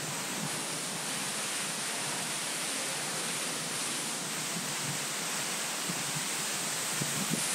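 Steady rushing hiss of fountain jets spraying water, growing slightly louder towards the end.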